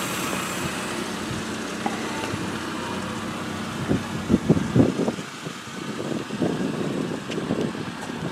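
1991 Honda Civic Wagon RT4WD's single-cam four-cylinder engine idling steadily while warming up. From about four seconds in, irregular gusts of wind rumble on the microphone.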